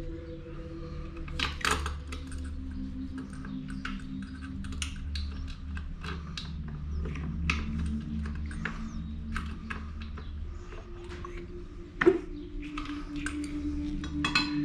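Irregular light metallic clicks and taps from handling tools and engine parts, over a steady low hum, with a sharper knock about twelve seconds in.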